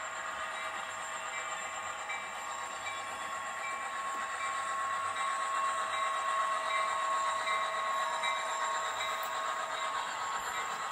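Model diesel locomotive's LokSound sound decoder playing a diesel engine through its small onboard speaker as the locomotive pulls hopper cars past, growing a little louder about halfway through as it draws level.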